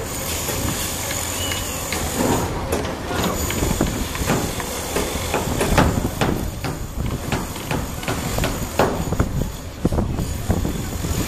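Sumitomo SH480 hydraulic excavator working: its diesel engine runs steadily under a hiss, with a string of clanks and scrapes from about four seconds in.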